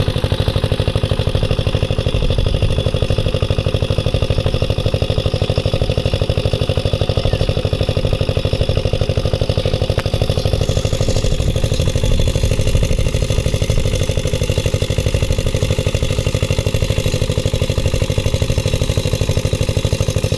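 A small engine running steadily at an even speed, with a fast regular beat that does not change.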